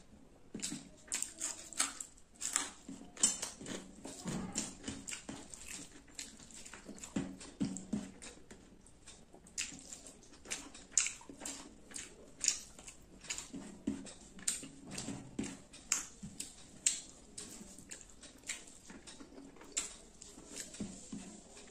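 Close-miked eating by hand: wet chewing and lip-smacking, a steady run of sharp smacks and clicks, with fingers now and then working rice and curry on a steel plate.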